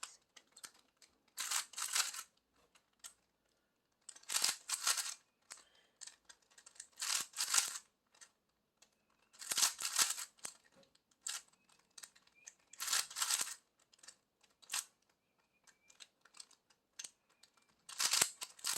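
Plastic 3x3 Rubik's Cube being turned by hand: quick bursts of clicking clacks as layers are twisted, six bursts at roughly three-second intervals with scattered single clicks between.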